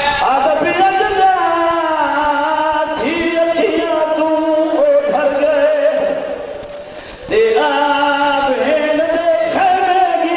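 A man chanting a majlis recitation into a microphone in long, wavering held notes. His line trails off about six seconds in and he starts again about a second later.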